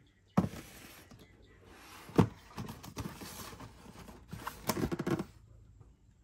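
A cardboard shoe box handled and turned in the hands: a few knocks against the box, the loudest about two seconds in, with a cluster near five seconds, and the scraping and rubbing of hands on the cardboard between them.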